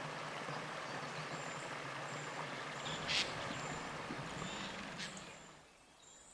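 Mountain stream running, a steady rush of water that fades out near the end. A brief sharp high-pitched sound cuts through about three seconds in.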